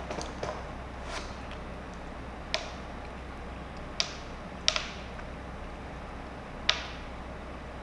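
A person eating lemon slices: sharp, wet clicks about every second or so from chewing the lemon and pulling at its peel, over a steady low hum.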